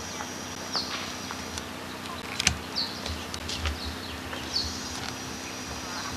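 Outdoor background with a steady high-pitched buzz and a few short, falling bird chirps. Scattered sharp knocks from handling the camcorder sound over it, the loudest about two and a half seconds in.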